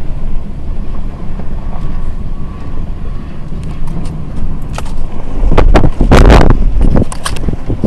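Truck engine running while driving, a steady low rumble. From about five and a half seconds in, wind buffets the microphone in loud rushing gusts.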